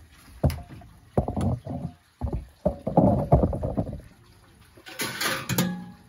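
Metal clunks and rattles as the door of a built-in oven is pulled open and dropped down on its hinges, then a brief scraping rattle near the end as a metal baking tray slides out of the oven.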